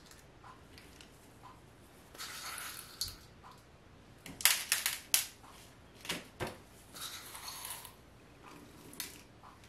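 Coated salt crystals being scooped by gloved fingers from a small stainless steel bowl and pressed onto the tops of bath bombs: intermittent gritty crunching and rustling, with a few sharp clicks of salt against the metal bowl.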